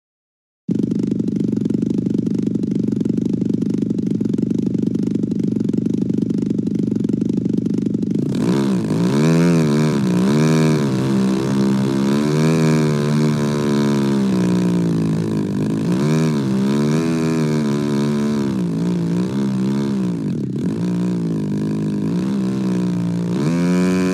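Radio-controlled model airplane engine running: steady for the first eight seconds, then its pitch rising and falling again and again as the throttle is opened and closed while the plane taxis on the grass.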